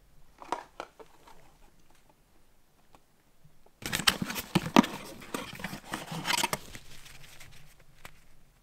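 A small cardboard parts box being opened by hand and a plastic air filter slid out of it: a few light clicks, then about four seconds in a few seconds of dense crackling, rustling and scraping of cardboard that trails off.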